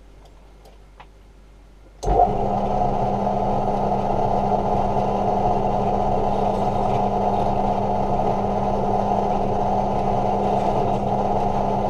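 Electric drill running steadily, boring out a screw hole in a hard-plastic landing-gear leg. It starts suddenly about two seconds in and keeps an even pitch without a break.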